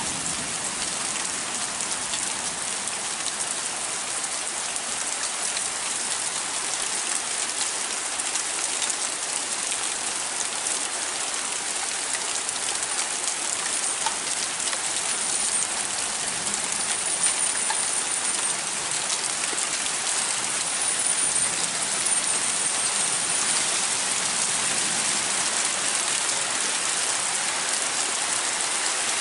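Heavy rain falling steadily, a dense hiss of drops on surfaces that grows a little louder about halfway through.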